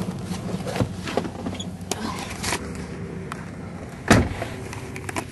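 Camera handling noise: clicks, rubbing and knocks, with one loud thump about four seconds in, over a steady low engine hum.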